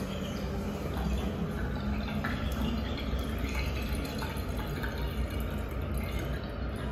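Flush water running down a stainless steel slab urinal and trickling and dripping into its drain outlet, a steady watery sound in a small tiled room.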